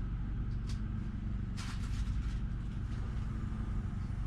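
A steady low machine hum with a few soft rustles, the loudest about a second and a half in.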